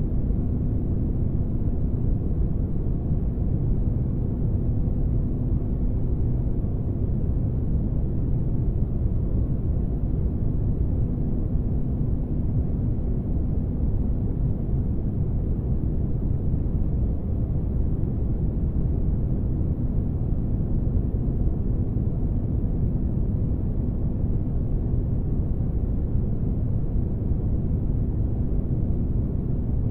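Spaceship ambience sound design: a steady, deep rumble of noise with a faint low hum held on one note, unchanging throughout.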